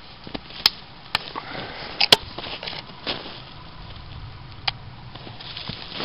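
Dry dead twigs snapping as they are broken off a small tree by hand: about five sharp cracks, two of them in quick succession, among the rustle of branches.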